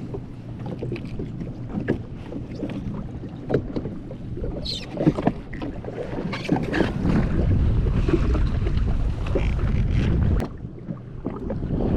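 Wind buffeting the microphone and water moving around a jet ski, with scattered small clicks and knocks throughout; the low rush grows louder for a few seconds after the middle, then drops off sharply.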